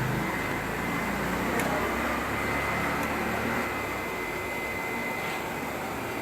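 Shop vacuum running steadily with a whir and a faint high whine, easing a little about halfway through.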